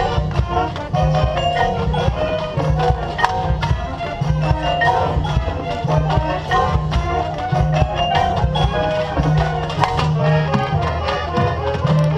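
Marching band playing its field show, with mallet percussion such as marimba, xylophone and bells playing many quick struck notes over a steady low bass.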